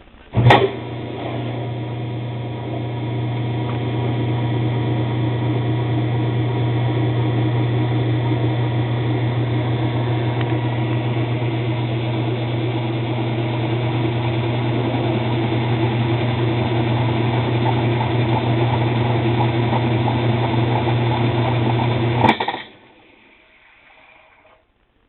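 Kenmore direct-drive washing machine in its spin cycle, motor and drum running with a loud, steady hum and noise; this is the noise during spin that came on after the motor coupler was replaced. It starts with a click, cuts off with a click near the end, and a fainter sound then dies away.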